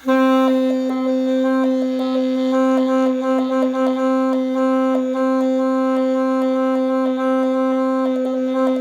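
Saxophone holding one long steady note, A, while keys are pressed and released, giving many quick clicks and brief flickers in the tone: the ghost-note technique of lowering the pitch slightly by closing keys over a held note.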